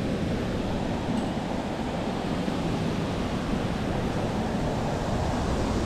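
Steady rushing noise at an even level, heaviest in the low end, with no distinct events.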